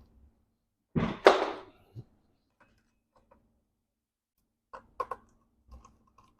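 Handling noise from fetching a part: a loud knock with a short scrape about a second in, a single thud just after, then a few light clicks and taps near the end.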